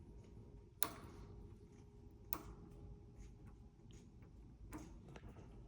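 Two sharp small clicks about a second and a half apart, with a few fainter ticks, over quiet room tone: a locksmith's pick-decoder tool being worked in a door lock as its pin depths are read off.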